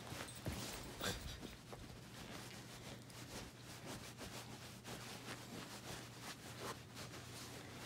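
Faint rustling and scratching close to the microphone, with two short soft knocks about half a second and a second in, over a low steady hum.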